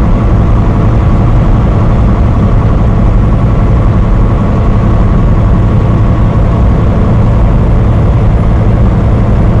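Steady low drone of a semi-truck's engine and road noise, heard from inside the cab while driving.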